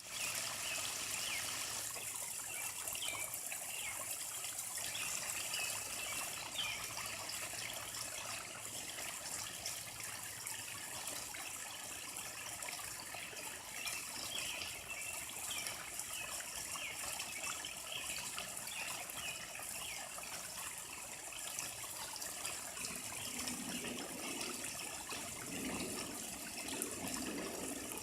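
Koi pond water trickling and splashing steadily.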